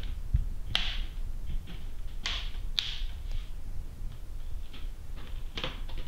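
A few short plastic clicks and snaps, spaced a second or so apart, from an ASUS X551C laptop's case. The top case is being pressed down so its clips lock together, and the lid is shut.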